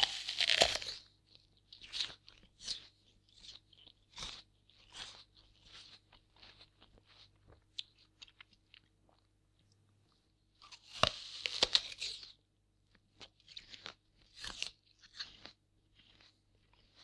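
A person biting into a crisp, fresh apple and chewing it. A loud crunching bite at the start is followed by crunchy chewing that fades over several seconds. A second bite comes about eleven seconds in, followed by more chewing.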